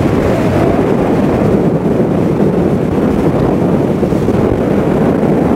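Steady wind rush buffeting the microphone of a handlebar-mounted camera on a motorcycle at speed, a loud low rumble with no distinct motor note.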